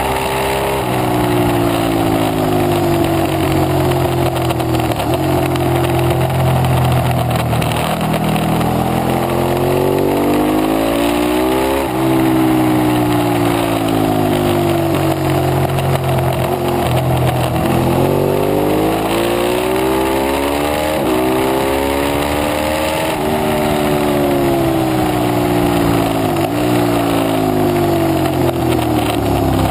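Ducati 848 Evo Corse SE's V-twin engine at race pace, the revs climbing and falling again and again as the bike accelerates and brakes through corners, with wind noise rushing over the bike.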